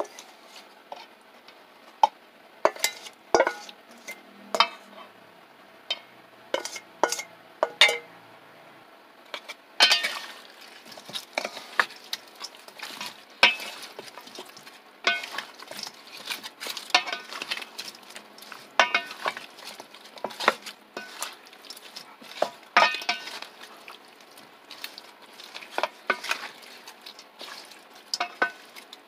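A spatula scraping chili seasoning off a plate and mixing it into raw chicken pieces in a stainless steel bowl: scattered sharp knocks and clinks against the metal, turning to denser, steadier stirring from about ten seconds in.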